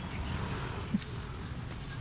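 Small metal hand tool clicking against a diesel injection pump's housing during bench assembly, with one sharp click about a second in and a few fainter ones. A steady low hum runs underneath.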